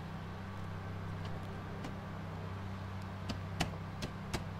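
A few short plastic clicks and knocks about three seconds in, the loudest in the middle, as an aftermarket taillight housing is handled and pressed into place against the car body, over a steady low hum.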